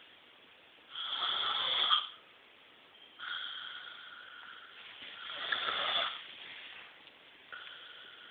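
A person snoring heavily: two loud, rasping snores about four seconds apart, each lasting about a second, with quieter, whistling breaths between them. The uploader wonders whether enlarged tonsils are the cause.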